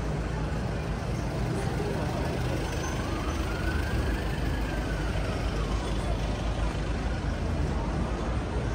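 Busy city street noise: a steady low traffic rumble with passers-by, and beneath it the faint wail of an emergency-vehicle siren, slowly rising and falling and climbing again near the end.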